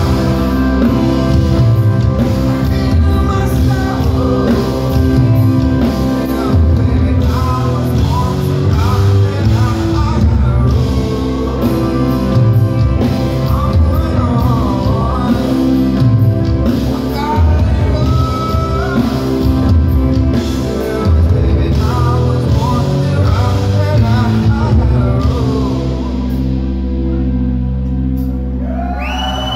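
Live rock band playing an instrumental passage: electric guitars, bass and drums, loud in a large hall. A few seconds before the end the drums drop out and a low note is held.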